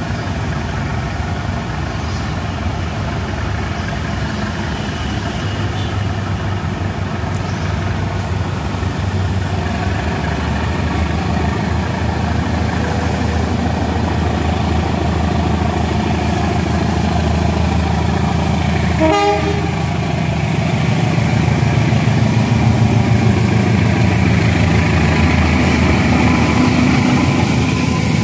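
Diesel locomotive hauling a passenger train pulls out and approaches, its engine hum growing louder as it draws near and passes. About two-thirds of the way through it gives one short horn toot.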